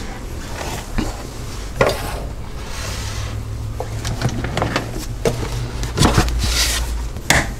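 Scattered light knocks and rubbing as items are handled and set down on a kitchen countertop, over a steady low hum.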